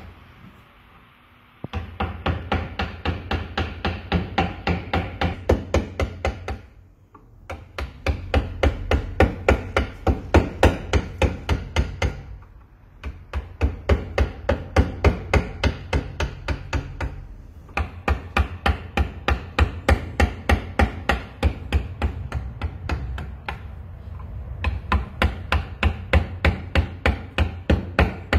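Mallet striking a woodcarving gouge as it cuts into a wooden sculpture: quick, even knocks at about three or four a second, in runs of several seconds with short pauses between.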